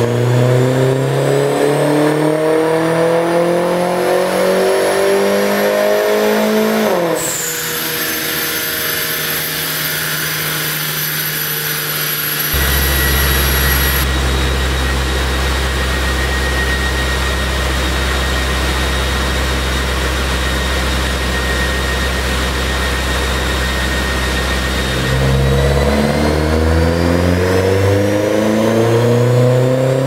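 2013 Mini Cooper S John Cooper Works's turbocharged 1.6-litre four-cylinder, running with a tuned ECU and downpipe on a chassis dyno, revving in a full-throttle pull. The note climbs steadily for about seven seconds, then drops sharply as the throttle closes. A lower steady drone runs through the middle, and near the end the note starts climbing again in a second pull.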